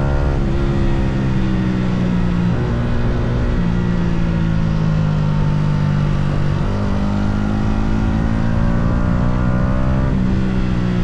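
Yamaha R125's single-cylinder four-stroke engine running under load on the move. Its note drops suddenly several times and climbs again in between, as the rider shifts gear and rolls back on the throttle.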